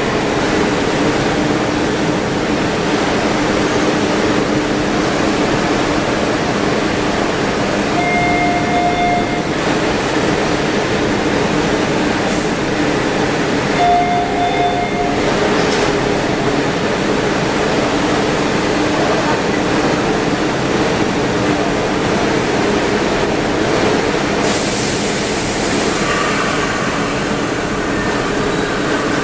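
MBTA Red Line subway train at an underground platform, a steady hum and rumble echoing in the station. Two short electronic beeps sound, about eight and fourteen seconds in. Near the end a high hiss comes in, followed by whining tones as the train gets moving.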